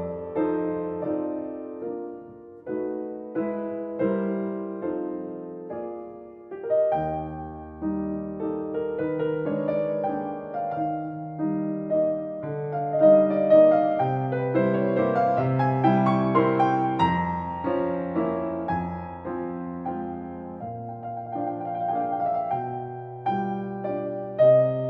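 Solo piano playing a slow, gentle instrumental Christmas piece. The notes are struck singly and left to ring, then grow busier in the middle.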